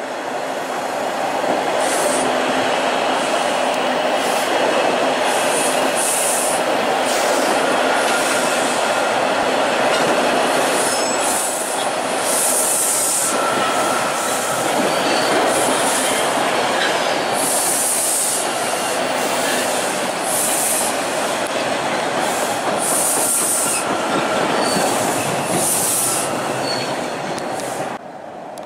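Two Toronto T-1 subway trains passing each other on open-air track, running loud and steady throughout. Repeated hissing bursts sit high above the roar, with a few brief high-pitched tones. The noise falls off sharply near the end as the trains clear.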